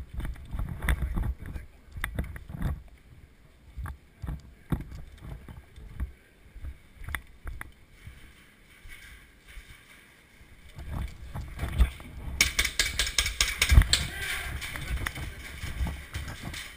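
Footsteps, knocks and gear rustle of an airsoft player on the move, with low wind rumble on the microphone. From about twelve seconds in comes a fast, steady rattle.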